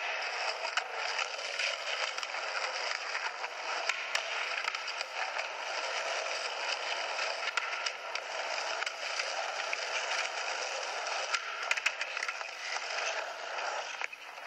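Skateboard wheels rolling on concrete, with scattered clicks and a few sharper knocks of the board about twelve seconds in. It is played back through a camcorder's small speaker, so it sounds tinny, with no low end.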